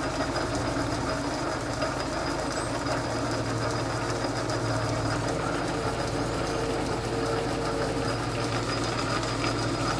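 Metal lathe running steadily, its motor and drive humming evenly as the chuck spins a coupler threaded onto all-thread to check how true it runs.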